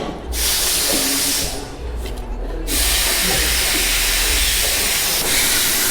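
Loud steady hiss that cuts out abruptly twice, briefly near the start and again for about a second around two seconds in, over a low rumble.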